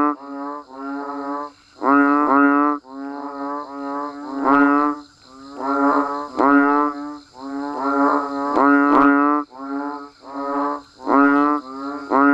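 A chorus of banded bullfrogs (Asian painted frogs) calling: pitched calls about half a second long, repeated roughly once a second, with louder and fainter frogs overlapping. A faint steady high hum runs behind them.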